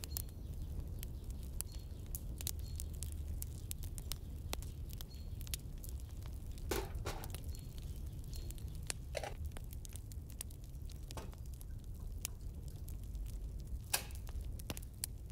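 Wood fire crackling, with many sharp little pops over a low steady rumble, and a few louder knocks of a metal teakettle and its lid being handled.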